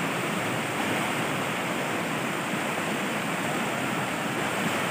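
Fast-flowing river rushing over rocks and through rapids: a steady, even noise of running water.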